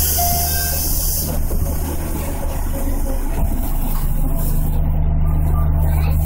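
211-series electric train standing at a stop, its onboard equipment giving a steady low hum. A hiss of released compressed air cuts off about a second in.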